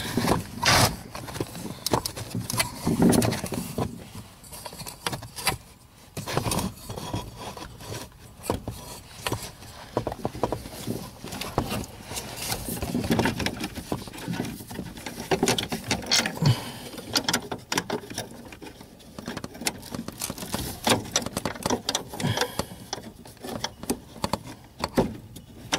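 Irregular small clicks, taps and rustles of a hand working among wiring, plastic trim and a rubber duct under a pickup truck's dashboard.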